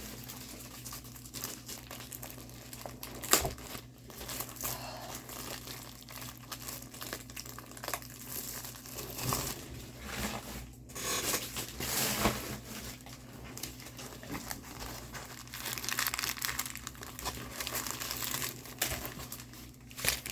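Plastic packaging of a diamond painting kit crinkling and rustling as it is handled and opened, in uneven spells, with a sharp click about three seconds in.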